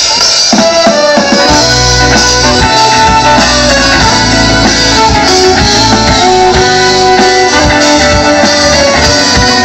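Celtic folk-rock band playing live through a PA, loud: drums and bass keep a steady beat under guitar and a held melody line. It is an instrumental passage with no singing.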